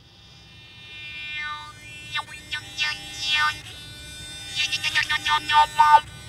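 K'ny, a Vietnamese bamboo one-string bowed instrument voiced through the player's mouth, being played: a buzzy, voice-like tone whose vowel-like colour sweeps up and down. It starts soft and grows louder in short phrases, the last few notes near the end sliding down in pitch.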